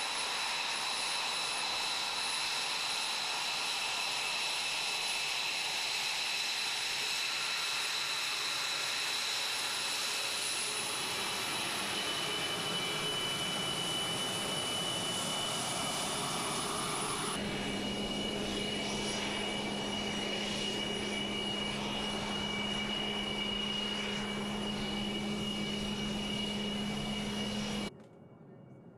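Twin Pratt & Whitney F119 turbofans of an F-22 Raptor running at ground idle while taxiing, a steady jet whine with high-pitched turbine tones. About two thirds of the way through the sound changes abruptly to a different steady engine whine with a low hum, and it cuts off suddenly near the end.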